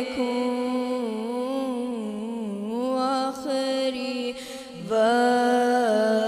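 A boy singing an Urdu naat solo and unaccompanied, drawing each syllable out into long, wavering, ornamented notes. He takes a short breath about four and a half seconds in, then starts a new, higher phrase.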